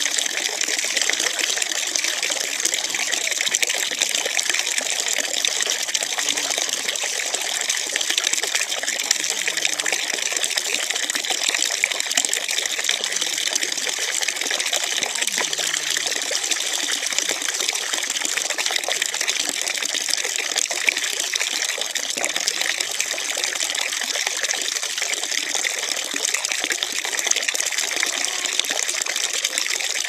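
Steady stream of water running from a brass standpipe tap and splashing onto the ground below.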